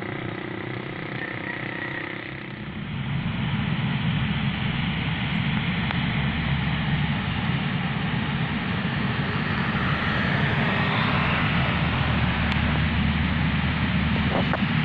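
C-130 Hercules's four turboprop engines running, a steady drone that grows louder about three seconds in and then holds.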